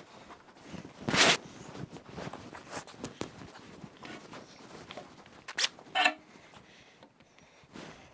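Scattered knocks and handling noises of timber and tools being moved, with a louder knock about a second in and a short ringing metallic clink around six seconds in.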